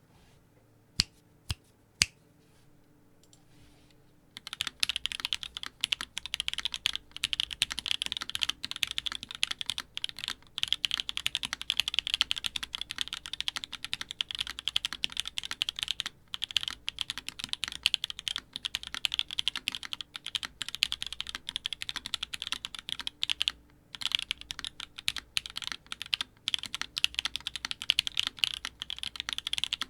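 Typing on a Keycult No.1/65 mechanical keyboard with a polycarbonate plate, lubed Turquoise Tealios linear switches and GMK keycaps. A few single key presses come about a second in. Steady fast typing starts at about four seconds, with a couple of brief pauses.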